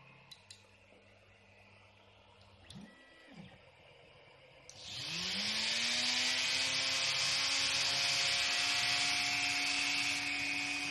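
A Dremel rotary tool, driven through its flex-shaft extension mounted on a 3D printer's head, switched on about halfway through. It spins up with a rising whine that levels off into a steady high-speed whir. Before it, two faint clicks and a short whir.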